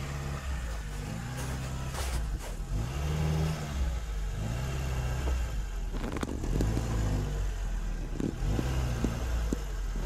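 Lada Niva's engine revving up and down repeatedly as it crawls through a muddy, rocky creek bed, with a few knocks from the vehicle.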